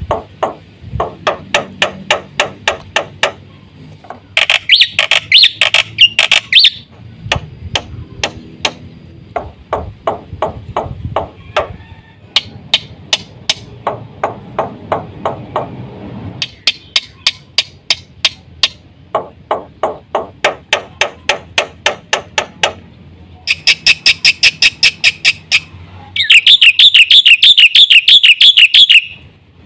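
Black-winged myna (jalak putih) singing: long runs of sharp, rapidly repeated clicking notes, about four or five a second, broken by bursts of fast warbling song. The loudest warbling burst comes near the end.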